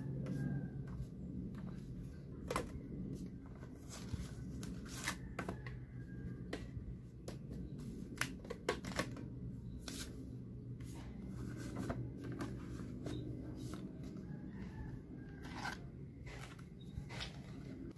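Hands handling paper and small desk items: paper cards rustling and shuffling, with scattered sharp clicks and taps as things are picked up and set down, over a low steady background hum.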